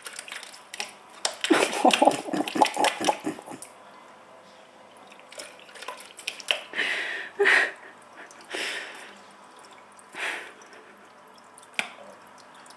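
A cat pawing and splashing the water in an electric pet drinking fountain: a quick run of splashes and taps for the first few seconds, then single splashes every second or two.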